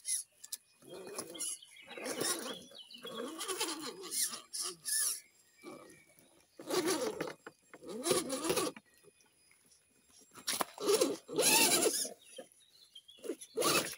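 Electric RC rock crawler's motor and geared drivetrain whining in short bursts as the throttle is blipped and released, with the tyres scrabbling and rattling over rock. The whine wavers in pitch as the truck crawls up and over a boulder.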